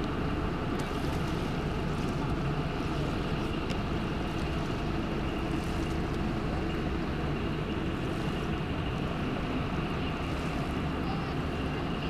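Steady, even drone of a river tug's engine running across the water.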